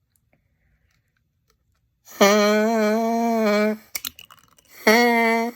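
Plastic drinking-straw kazoo, its flattened and snipped end buzzing as a reed, blown in a steady, buzzy tone for about a second and a half, starting about two seconds in. A sharp snip follows as scissors cut the straw shorter, then a second buzz starts near the end.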